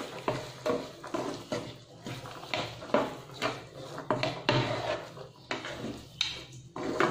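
Slotted spatula stirring green peas into a thick tomato masala in a non-stick kadai, scraping and knocking against the pan about twice a second, over a faint steady low hum.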